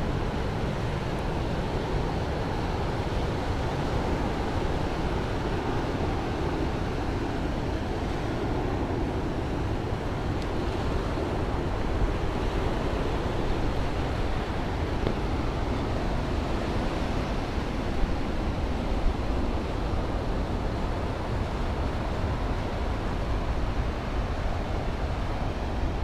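Surf from small waves breaking and washing up a sandy beach: a steady rush of sea noise.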